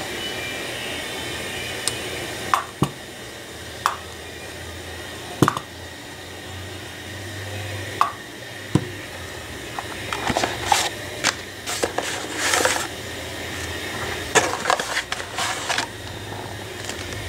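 Scattered sharp clicks and taps of small distributor parts being handled and fitted by hand, with a busier stretch of rustling and scraping in the second half, over a steady background hum.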